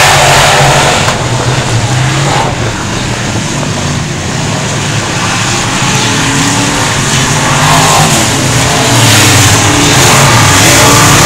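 A field of dirt-track race cars running laps on an oval, their engines loud and steady. The sound eases off a little about a second in as the pack moves away, then builds back up about eight seconds in as the cars come around again.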